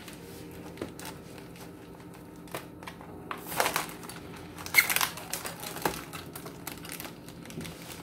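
Plastic air-column packaging bag crinkling and crackling as it is handled and turned over, with the loudest bursts about three and a half and five seconds in.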